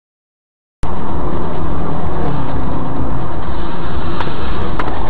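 Silence, then about a second in a car's engine and road noise cut in abruptly and loud: a steady rumble with a low hum and scattered small clicks.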